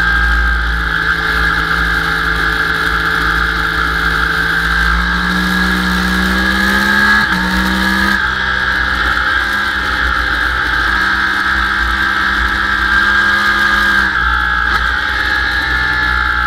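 Sport bike's engine running hard at high revs, heard from on board with a steady low rush of wind on the microphone. The pitch climbs through the middle, steps abruptly about eight seconds in, and drops back about fourteen seconds in as the rider eases off.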